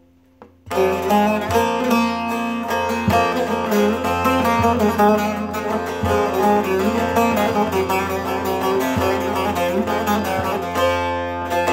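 Bağlama (saz) played solo, a steady stream of quickly picked notes with lower strings ringing on underneath; it starts just under a second in.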